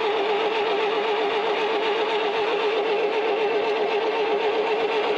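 Electric starter motor cranking the trencher's engine with a steady whine that wavers several times a second as the engine turns over without catching.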